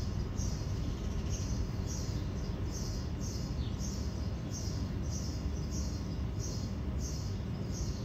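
A honey bee swarm cluster humming steadily, a dense low buzz of many bees. Over it, a short high chirp repeats about twice a second.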